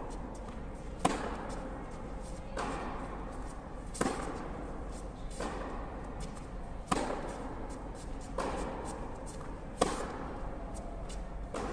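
Tennis ball struck back and forth in a baseline rally in an indoor hall: four sharp racket hits close by, about three seconds apart, with softer hits and bounces from the far side between them, each echoing briefly in the hall. A steady low hum runs underneath.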